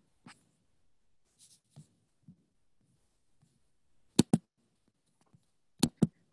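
Computer mouse clicking: four sharp clicks in two quick pairs about a second and a half apart, against near silence with faint soft rustles.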